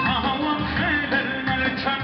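Live amplified Assyrian wedding music: a male singer on a microphone over instrumental accompaniment, his voice bending in wavering, ornamented lines.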